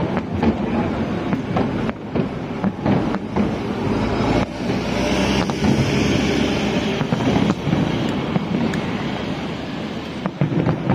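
Fireworks display: a steady rumble with many sharp bangs and booms going off, and a hissing, crackling stretch about halfway through.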